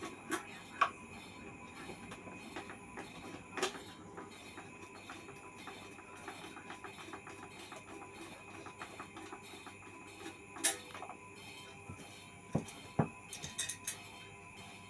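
Scattered clicks and several sharper knocks, as of parts being handled and cleaned, over a steady high-pitched tone.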